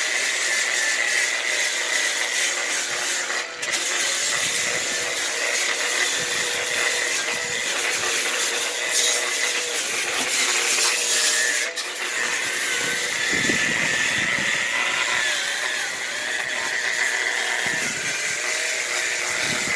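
Ryobi variable-speed right-angle power tool spinning a red abrasive brush disc against cedar logs: a steady high motor whine over the scrubbing of the brush on wood, dropping off briefly twice.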